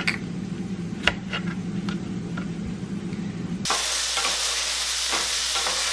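Chickpeas frying in olive oil in a pan: a steady sizzle that starts abruptly about two-thirds through. Before it there is a faint hum and a few light knocks, one louder knock about a second in.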